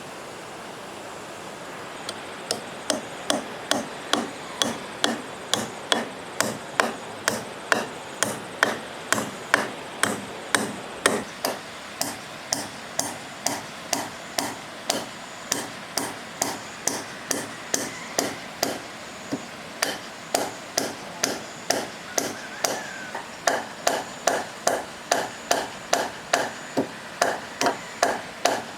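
A hammer striking wood over and over, about two to three blows a second in a steady rhythm, starting about two seconds in.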